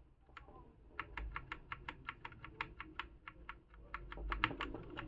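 Keystrokes on a Gamepower Overlord 60M mechanical keyboard with brown (tactile) switches. Short sharp key clicks come about four to five a second, starting about a second in.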